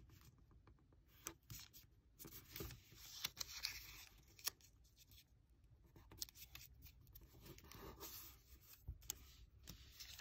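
A small sheet of origami paper being folded and creased by hand: faint, irregular rustles, crinkles and soft taps.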